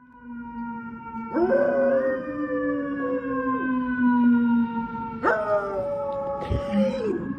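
A dog howling: two long, drawn-out howls, each sliding up at the start and then held. They rise over a steady, slowly falling lower tone.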